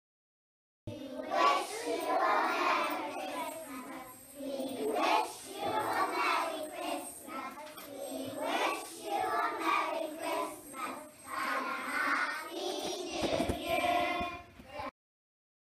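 A class of young children singing together. The singing starts about a second in and cuts off abruptly just before the end.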